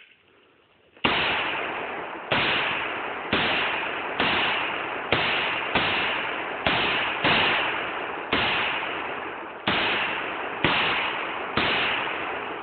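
AR-15 rifle firing .223 in semi-automatic, about a dozen shots at roughly one a second. Each shot rings out in a long decaying echo until the next.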